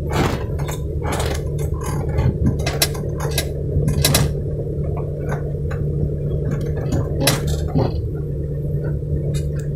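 A 4x4's engine running steadily at low revs as the vehicle crawls over a rough, bumpy track, with repeated sharp clinks and rattles from loose fittings and the body jolting over the ruts.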